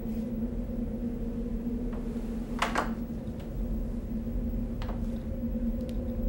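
A steady low hum, with a few brief rustles of bedsheets as a person shifts and sits up in bed; the loudest rustle comes about two and a half seconds in.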